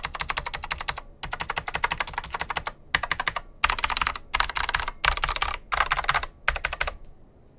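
Rapid typing on a keyboard with clicky mechanical switches, in quick bursts of keystrokes separated by short pauses. The typing stops about seven seconds in.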